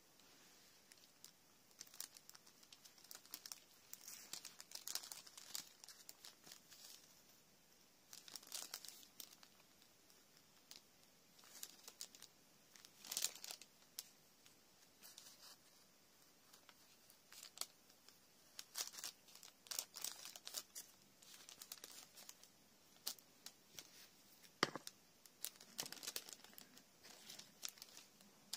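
Thin paper sewing pattern crinkling and rustling in irregular soft bursts as thread is hand-stitched and drawn through the paper and fabric to make tailor's tacks. One sharper tap sounds near the end.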